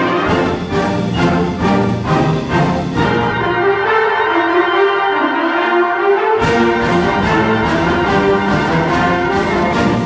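A high-school concert band of woodwinds, brass and percussion playing a fast march. About three seconds in, the percussion and low instruments drop out and a mid-range melody line carries on alone. About six and a half seconds in, the full band comes back in with regular percussion strokes.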